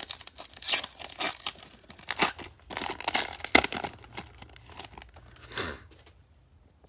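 A trading card pack's wrapper being torn open and crinkled by hand: a run of crackly rips and rustles that stops near the end.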